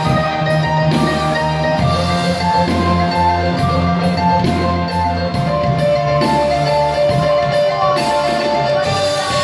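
Music with a bright mallet-percussion melody over held bass notes and a steady beat.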